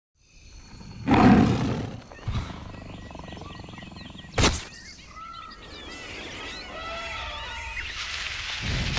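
Jungle sound effects: a big cat's roar about a second in, a thud, then a short sharp crack midway, followed by chirping bird calls over a hiss that grows toward the end.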